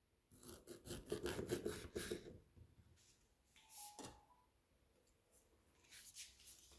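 A kitchen knife slicing through a lime on a wooden cutting board: a rapid run of small rasping cuts for about two seconds, then a single knock about four seconds in.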